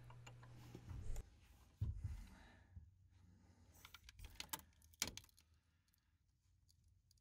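Near silence broken by a few faint, scattered clicks, clinks and rustles in the first five seconds, like small objects being handled.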